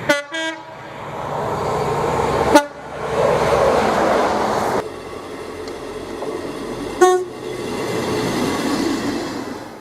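Train horns giving short blasts: a two-tone toot, high then low, right at the start, then single short toots about two and a half and seven seconds in, over the running noise of trains on the rails.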